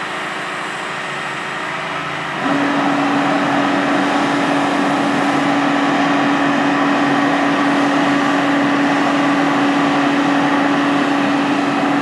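Utility boom truck's diesel engine running as its hydraulic boom lifts a pad-mount transformer. About two and a half seconds in it steps up louder, and a steady hum comes in and holds.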